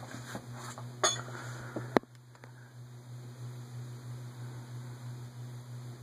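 Pull-chain switch on a vintage Evergo ceiling fan being pulled to shut the fan off for a spin-down: the chain rattles and clicks about a second in, ending in one sharp switch click about two seconds in. A steady low hum continues underneath.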